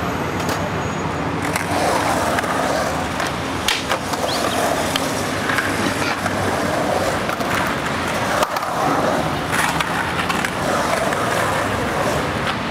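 Skateboard riding: the wheels roll with a continuous rumble that swells and fades, broken by several sharp clacks of the board, among them ones about four seconds in and eight and a half seconds in.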